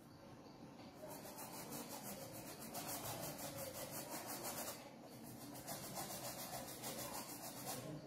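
Faint, quick, even scrubbing strokes of a paintbrush on stretched canvas, with a brief pause about halfway through.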